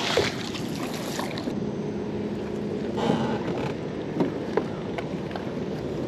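River water and wind around a small boat, with a magnet-fishing rope being hauled in and coiled by gloved hands, giving a few faint knocks.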